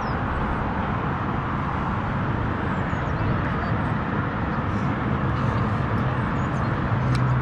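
Steady rumble of distant road traffic, with a low hum that swells near the end.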